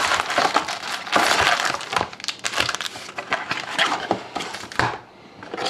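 Sealed hockey card packs rustling and crackling against each other and their cardboard box as they are pulled out by hand, a dense run of crinkles and small clicks that dies down about five seconds in.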